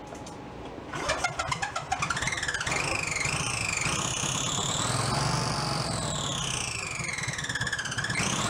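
Briggs & Stratton V-twin engine catching about a second in after a few rough firings, then running with its pitch rising and falling as the throttle is worked by hand at the carburetor. The speed dips near the end and comes back up.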